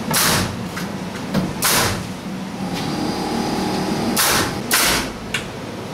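A handheld power tool runs with a steady whine for about a second and a half, with several short bursts of hissing noise before and after it.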